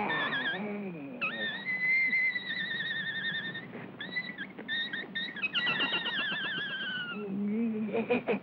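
Cartoon sound effects: high, squeaky warbling tones with a wavering pitch, in a long stretch and then a falling, trembling one. A lower gliding voice-like sound comes at the start and again near the end.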